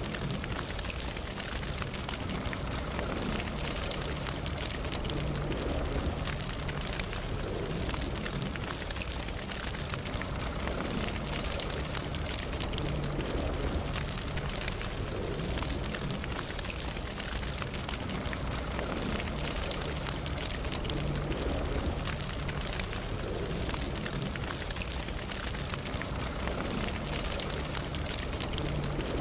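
Campfire burning steadily: a continuous low rumble and hiss of the flames with a dense run of small crackles and pops from the burning wood.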